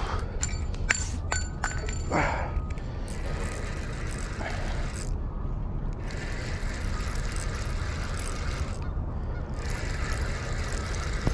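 Steady wind rumble buffeting an outdoor microphone, with a few sharp clicks in the first couple of seconds.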